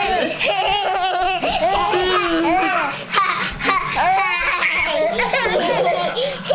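A baby laughing in hearty belly laughs, mixed with adults laughing along.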